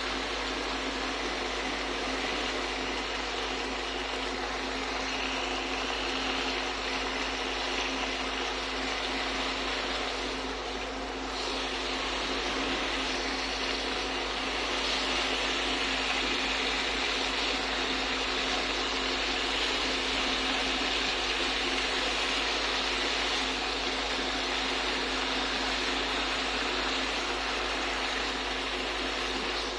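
Marinated pork belly slices sizzling in a hot nonstick pan, a steady hiss that grows a little louder about halfway through as the pan heats, over a constant low hum.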